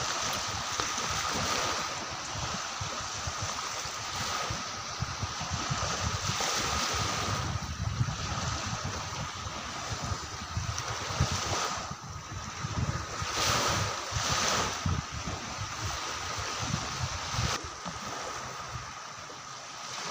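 Sea surf washing steadily, with wind gusting against the microphone in an uneven low rumble. A thin, steady high tone runs underneath.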